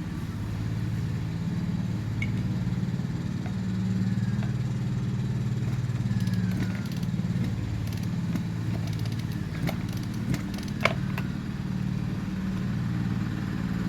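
Steady low engine drone running without change, with a few sharp clicks about ten to eleven seconds in.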